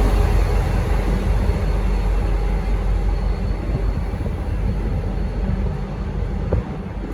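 V/Line N class diesel-electric locomotive and its train rumbling out of the station, a steady rumble that slowly fades as it moves away.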